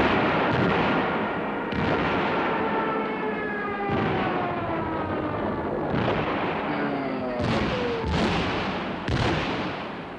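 Soundtrack sound effect of heavy booms like artillery fire, coming every one to two seconds and closer together near the end, layered with slowly falling whistling tones. It cuts off suddenly.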